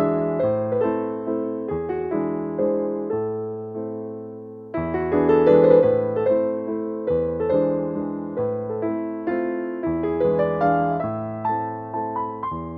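Background piano music: a slow, gentle melody of struck notes over changing chords, growing louder about five seconds in.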